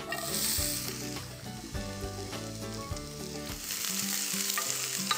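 Diced red onion sizzling in hot olive oil in a cast-iron frying pan as it goes in and is stirred with a spoon, with a few light knocks of the spoon against the pan near the end.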